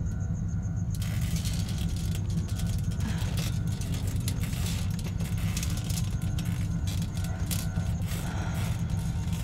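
Low, steady drone from a horror film score, with a dense crackling, rattling noise coming in about a second in.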